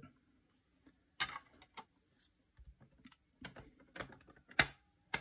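Hard plastic PSA graded-card slabs clicking and tapping against each other and the mat as they are handled and set down: a handful of short, sharp clicks, the loudest about four and a half seconds in.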